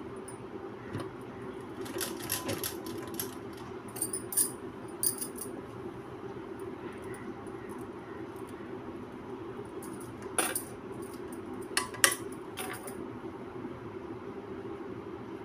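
Sewing machine running steadily while stitching gathers into thin fabric, with glass and metal bangles on the sewer's wrist clinking in a few short jingles, the loudest late on.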